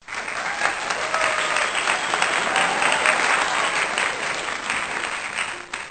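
A group of people clapping, with a few faint voices among the applause, which dies away near the end.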